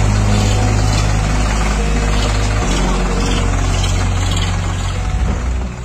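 Sonalika tractor diesel engines running as the tractors drive past in a line: a deep, steady engine note whose pitch shifts about two and a half seconds in, starting to fade near the end.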